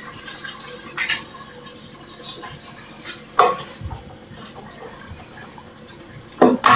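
Food cooking in a pot on a gas stove while it is stirred with a wooden spoon: a steady hiss, with a couple of short knocks of the spoon against the pot, about a second in and again past three seconds.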